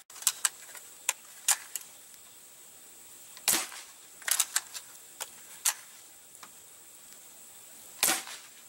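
Crosman 760 Pumpmaster air rifle being handled and pump-charged: a string of sharp clicks in the first two seconds, then several short strokes in the middle. Near the end it fires once with a sharp crack.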